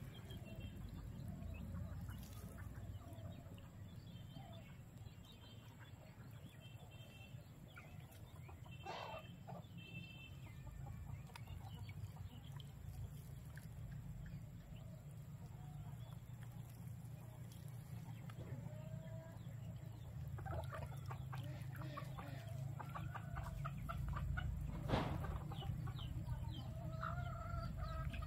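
Chickens clucking faintly, with other short bird calls, over a low steady rumble. A single sharp click stands out near the end.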